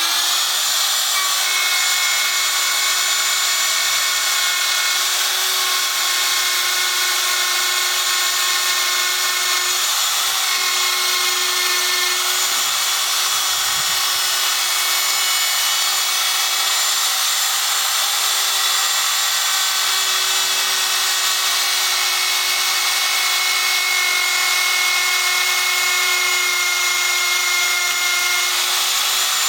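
Electric router running steadily at full speed, a loud pitched whine that holds even throughout, as a worn wood-cutting bit is fed slowly through aluminum.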